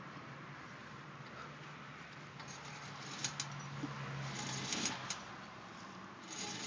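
A car's wheel and brake area, with the front wheel off, making a few faint clicks, about three seconds in, again near five seconds and near the end, over a steady hiss. This is the intermittent clicking noise being tracked down.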